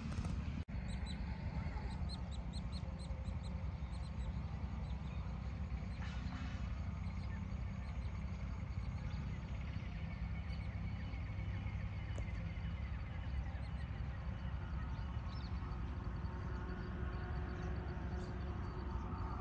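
Small birds chirping, with a quick run of short high notes about a second in and scattered calls after, over a steady low outdoor rumble.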